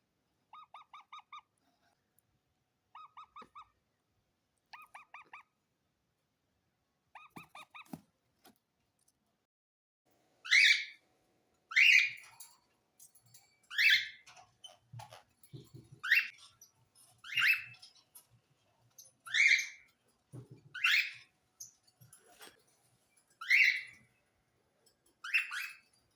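Pet parakeet calling: four quiet bursts of rapid chattering pulses, then, from about ten seconds in, loud short screeching calls repeated every second and a half to two seconds.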